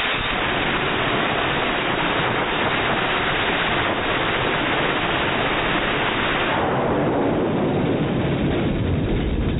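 Minigun firing a sustained burst, heard slowed down: a continuous dense rush of noise with no separate shots to be told apart. About seven seconds in the upper part fades, leaving the lower noise.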